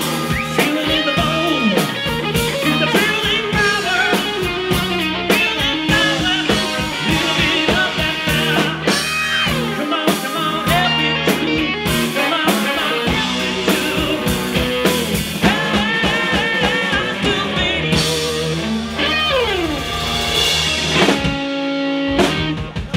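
Live rock band playing a cover: electric guitar with bending lead lines, electric bass and drum kit.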